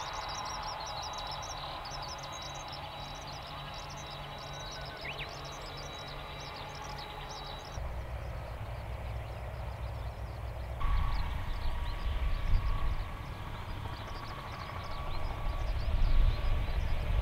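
Outdoor airport ambience: a steady low rumble with short high chirps, which may be birds, and a thin steady high tone. The sound changes about eight seconds in. About eleven seconds in, a louder low rumble sets in with a thin steady whine, from the apron where a Boeing 767-300 waits at the gate with its tug.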